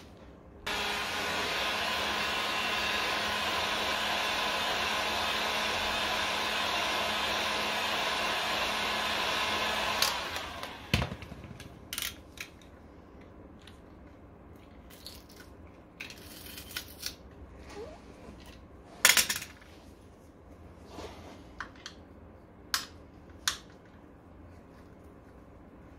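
A small electric motor runs steadily with a loud whir for about nine seconds, then is switched off and winds down. Scattered knocks and clicks of tools on metal follow.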